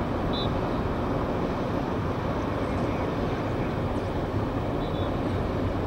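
Steady low rumble of the Japan Coast Guard 1000-ton patrol vessel Kunisaki's diesel engines running as it lies alongside the quay. Two faint short high chirps sound over it, about half a second and five seconds in.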